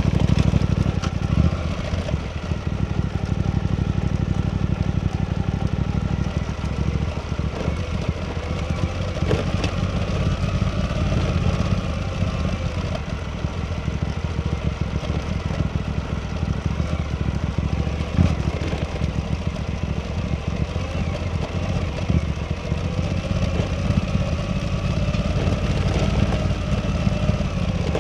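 Suzuki V-Strom 800DE parallel-twin engine running while the motorcycle is ridden, its pitch wavering gently up and down with the throttle. A little louder in the first couple of seconds.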